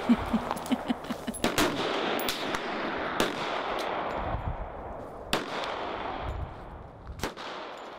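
Gunfire from several shooters at an outdoor range: a quick string of shots in the first two seconds, then single shots every second or two, with the sound fading out near the end.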